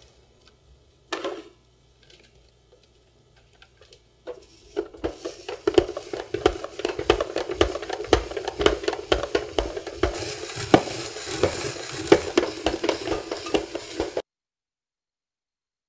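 Hand-cranked spiral vegetable slicer turning, its blade shaving squash into ribbons: a dense run of crisp crunching and clicking for about ten seconds that stops abruptly. A short knock about a second in, as the squash is pressed onto the holder.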